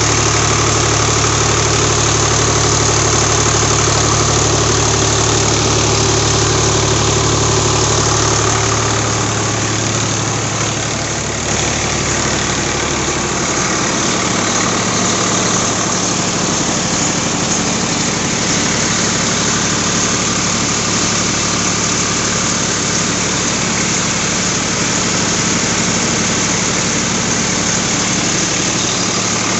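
Swaraj 735 FE tractor's diesel engine running steadily under load, driving a rice huller through the PTO shaft. The deep low rumble of the engine lessens about ten seconds in.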